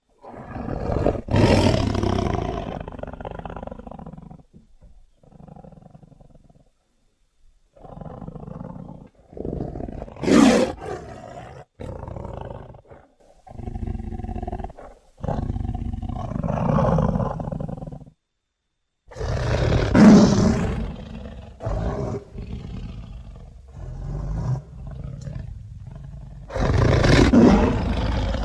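Fan-made Smilodon (sabre-toothed cat) sound effect: a series of deep big-cat roars and growls, about eight of them, broken by short, sudden silences where the clips are cut together.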